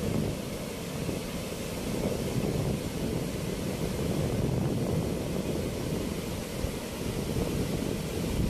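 Steady low roar of river water rushing through a weir's sluice gates, with a fainter hiss above it.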